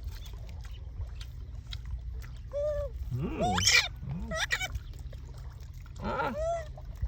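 Baby monkey giving a few short squealing calls, the loudest a shrill cry that sweeps up in pitch about three and a half seconds in, over a steady low background rumble.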